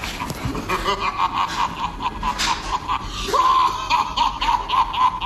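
A high-pitched villain's cackling laugh, a steady run of repeated 'ha' pulses about three a second, growing louder about three seconds in.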